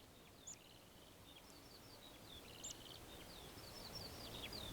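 Skylarks singing faintly: a continuous run of rapid high chirps, trills and short slurred notes. A low rush of breeze builds up toward the end.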